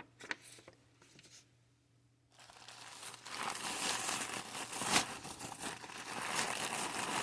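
Packaging being handled while a box is unpacked: a few faint ticks, then from about two seconds in a continuous crinkling and rustling, with one sharp click near the five-second mark.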